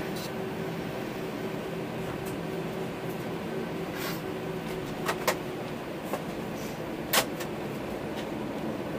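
Steady cabin drone inside an Airbus A321 taxiing with its CFM56 engines at idle, with a few sharp clicks and knocks from the cabin, the loudest about seven seconds in.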